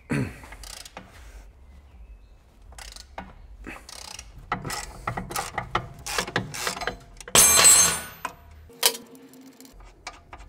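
Hand tools undoing a car's front lower control arm ball joint nut: a run of metallic clicks and scrapes as a wrench turns the nut. There is a louder ratcheting rasp a little past halfway, then a short metallic clink.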